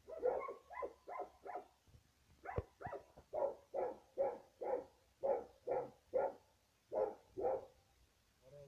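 A dog barking over and over, about two to three barks a second, with a short break about two seconds in. A single sharp knock sounds about two and a half seconds in.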